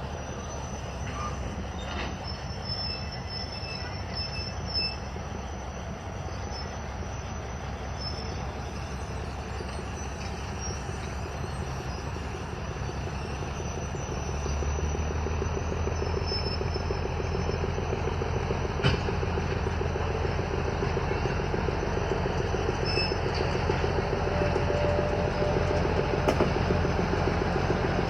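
Railroad locomotive running with a steady low hum, stepping up louder about halfway through.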